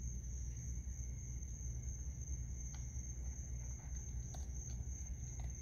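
Steady, high-pitched night chorus of crickets over a low rumble, with a few faint clicks as a raccoon eats from a plastic tub of food.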